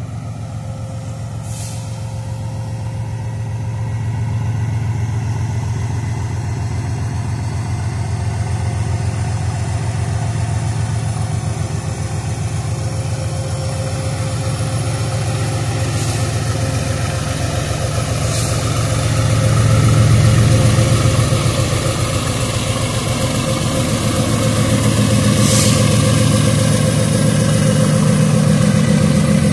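GE ES43BBi diesel-electric locomotive, with a second locomotive coupled behind, working under power at the head of a loaded freight train as it passes close by: a deep, steady engine beat that swells about twenty seconds in and again near the end. A few brief high hisses cut in over it.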